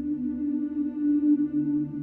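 Ambient background music: sustained, held tones over a slowly pulsing low drone.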